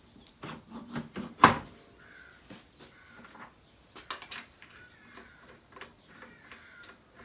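Parts of a bench spindle and belt sander being handled while a sanding disc or belt is swapped: a run of clicks and knocks, the loudest about a second and a half in, with a few short squeaks.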